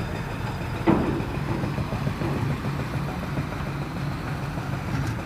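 Engine of site machinery running steadily at idle, with one sharp knock about a second in.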